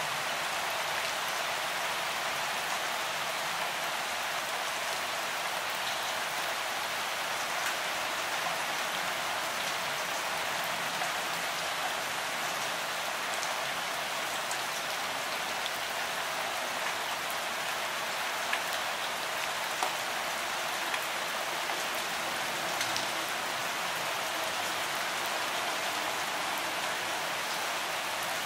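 Steady rain falling, an even hiss with scattered drop ticks.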